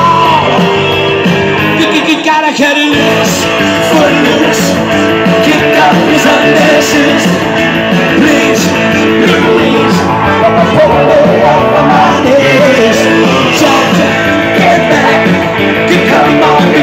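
Live rock-and-roll music: a man singing into a microphone over guitar-led backing. The low end of the music drops out briefly about two seconds in, then comes back in full.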